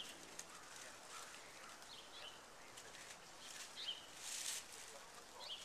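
Faint crackling and rustling of dry fallen leaves, with a brief louder rustle about four seconds in, and a few faint bird chirps.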